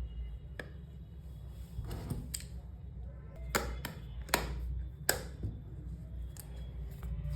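Plastic parts of a backpack strap camera mount being handled: a string of sharp clicks and taps, the three loudest about a second apart in the middle, over a low hum.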